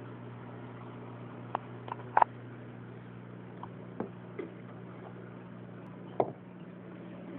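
A steady low electrical hum with a few sharp clicks and taps from an iPod nano being handled; the loudest click comes about two seconds in and another near the end.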